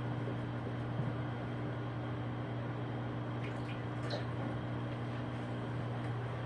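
Microwave oven running with a steady low hum, with a few faint clicks and rubs about halfway through.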